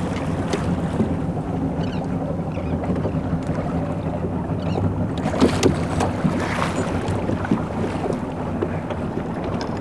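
A boat's engine running steadily while under way, with wind on the microphone. A couple of brief knocks come about five and a half seconds in.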